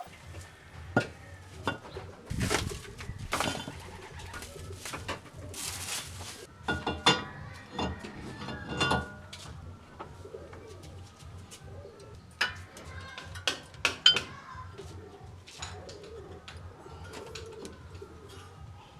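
Scattered metallic clinks and knocks of hand tools and brake parts being fitted, with a pigeon cooing in the background.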